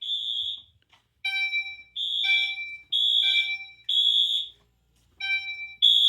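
Gentex Commander 3 horn strobe sounding its code 3 chime: three ringing chime strokes about a second apart, a pause, then the next three. A Wheelock MT multitone alarm sounds its code 3 horn over it, in the same three-pulse temporal pattern but out of step with the chimes.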